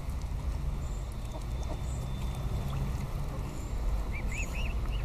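Wind buffeting the microphone as a steady low rumble, with a quick run of four or five short, high-pitched bird calls about four seconds in.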